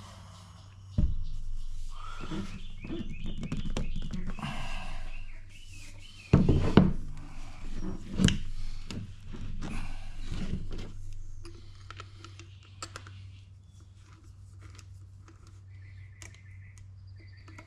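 Irregular knocks, scraping and rubbing from handling PVC drain pipe and fittings as a piece is worked onto the pipe, with sharp thunks about one second in and again around six and eight seconds in, over a steady low hum.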